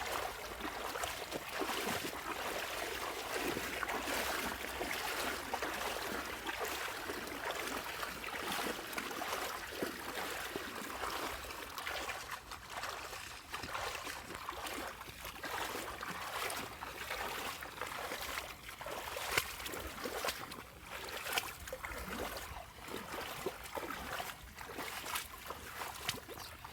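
Steady rushing, trickling water with many small sharp ticks and splashes scattered through it.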